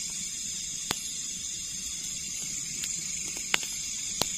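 A steady, high-pitched chorus of night insects, with a few sharp clicks as camping gear is handled inside a tent, about one second in and again near the end.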